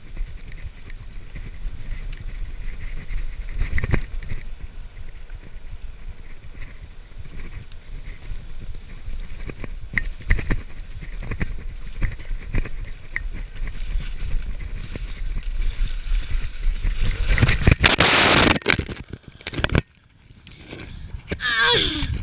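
Wind and tyre rumble on a bicycle-mounted action camera riding a leaf-strewn path, with rattling clicks from the bike. The noise swells into a loud rushing scrape as the bicycle hits a hidden branch and crashes, cuts out briefly, then a voice cries out.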